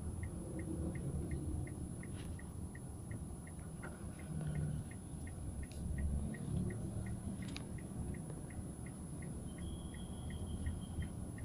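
Low, steady rumble of a car driving slowly along a city street, heard from inside the cabin, with a faint light ticking about three times a second throughout.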